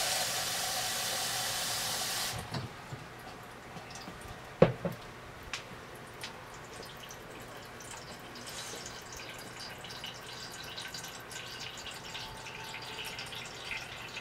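Kitchen tap running into the plastic hopper of a water filter jug, shut off about two seconds in. A single sharp knock follows as the jug is set down, then faint trickling and dripping as the water filters through the new cartridge.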